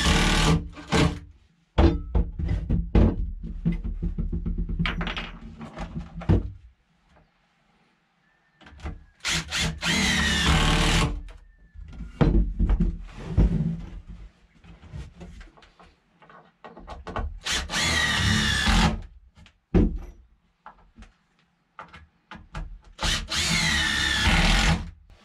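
Cordless impact driver driving screws into a wooden 2x4 stud, running in several short bursts of one to two seconds with pauses between them, with a few light knocks in the gaps.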